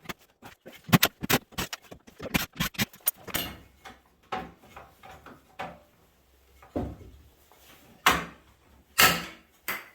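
Clicks and knocks of metal parts being handled while an old microwave oven is taken apart for scrap: a quick run of sharp clicks over the first three seconds, then a few separate louder knocks, the strongest two near the end.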